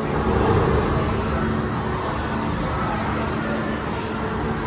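Steady rushing rumble with faint steady tones from an interactive flight-game projection's sound effects.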